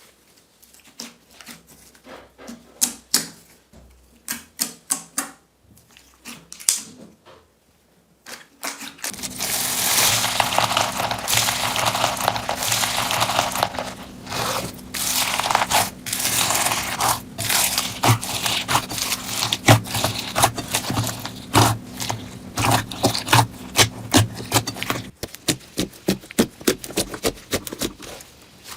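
Slime being squeezed and worked by hand, giving sticky clicking and crackling pops. The pops are scattered for the first several seconds, turn to dense, continuous crackling with a low steady hum underneath from about nine seconds in, and thin back to separate clicks near the end.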